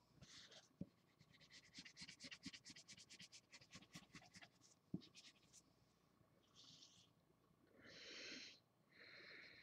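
Felt-tip markers scratching on paper in quick back-and-forth colouring strokes, about eight a second, then a few slower, longer strokes in the second half. Faint, with two light taps.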